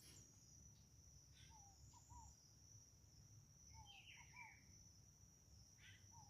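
Faint nature ambience: insects, crickets by their sound, trilling steadily at a high pitch, with short chirping calls over it in two small clusters and once more near the end.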